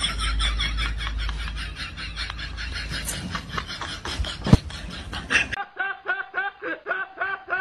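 Laughter throughout: fast breathy snickering with a single sharp knock about four and a half seconds in, then, after a cut, a man laughing hard in quick pitched bursts.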